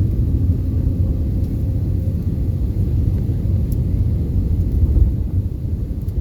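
Steady low rumble in the cabin of an Airbus A320 during landing, with no reverse-thrust roar because reverse thrust is not used.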